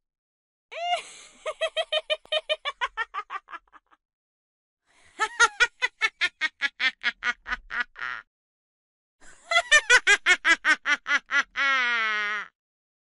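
Three bouts of high-pitched witch's cackling, each a rapid run of 'ha-ha' pulses at about six a second, with short silences between; the last bout ends in a drawn-out falling cackle.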